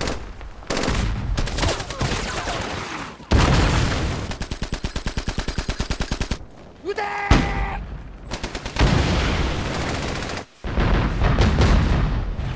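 Battle gunfire: machine-gun fire and rifle shots. About three seconds in comes a long, even machine-gun burst of roughly eight rounds a second, lasting about three seconds.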